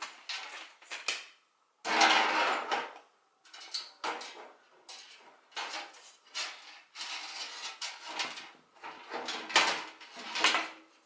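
A PC case's front panel being taken off and a 3D printed plastic panel handled and fitted: irregular plastic clatter, scraping and clicks, with louder knocks about two seconds in and near the end.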